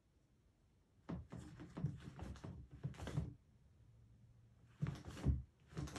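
A cat rummaging in an open plastic storage drawer, with irregular thunks and rustling of plastic and cloth in two bursts: one starting about a second in and lasting about two seconds, another near the end.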